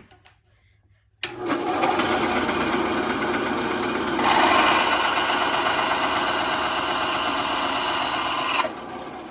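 A power tool's motor starts about a second in and runs steadily. It grows louder and harsher midway, likely as it works the acrylic blank, then switches off near the end and spins down.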